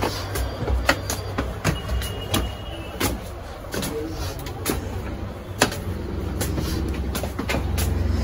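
Street traffic: a motor vehicle's engine runs close by, becoming a steady, louder drone from about six seconds in. Scattered sharp clicks and knocks sound over it.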